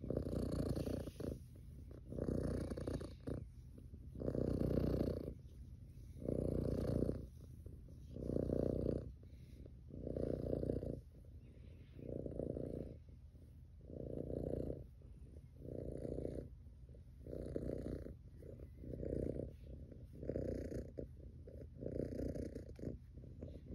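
Tabby cat purring close up, the purr swelling and fading with each breath, about once every two seconds.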